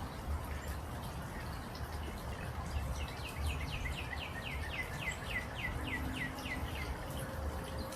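Downy woodpecker's whinny: a rapid run of short, high notes, each sliding downward, lasting about four seconds from about three seconds in, over a steady low background rumble.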